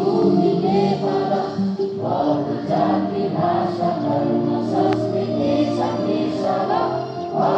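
Many voices singing a song together in chorus, with long held notes; schoolchildren singing at their morning assembly.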